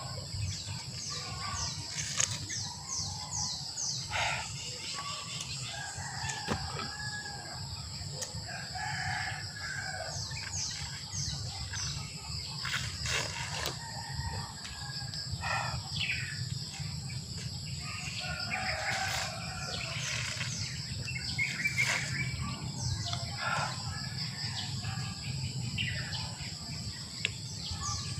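Backyard birds chirping and calling, with chickens and a rooster crowing, over a steady high insect buzz. Many quick falling chirps repeat throughout.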